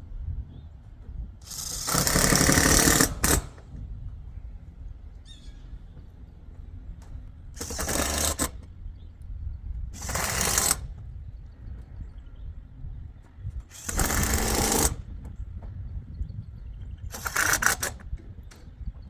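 Impact driver running in five short bursts, about one to two seconds each, driving screws through metal roofing panels; the first burst, about two seconds in, is the longest.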